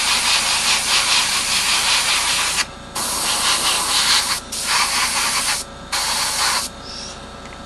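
Airbrush spraying primer onto a small plastic model part: a steady hiss in four bursts, one long and then three shorter ones with brief pauses between, stopping near the end.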